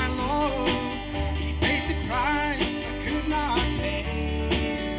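Live country gospel band music: acoustic guitar and bass with a steady drum beat, and a melody line sliding between notes over them.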